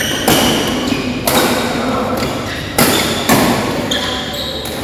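Badminton rackets striking a shuttlecock during a doubles rally: about four sharp hits, spaced unevenly, with the loudest near the start and in the second half.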